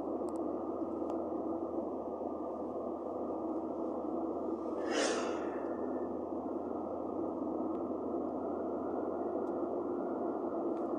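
Steady, muffled road and engine noise heard from inside a car driving at motorway speed, with one brief whoosh about five seconds in.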